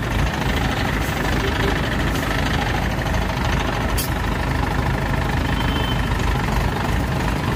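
Diesel engine of an ACE pick-and-carry mobile crane running steadily with a low rumble, heard at close range from the cab, with a single sharp click about four seconds in.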